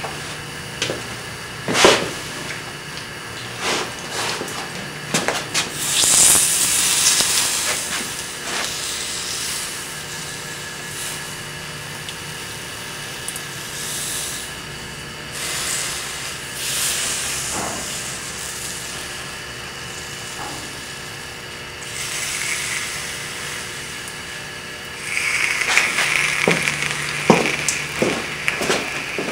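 Wet rags being handled and wrapped around a freshly welded, clamped part to cool it: rustling with scattered clicks and knocks. Two stretches of hissing stand out, one about six seconds in and a louder one near the end.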